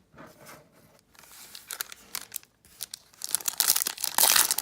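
Plastic trading-card pack wrapper crinkling and tearing as a pack is opened by hand, with sharp crackles that get louder toward the end.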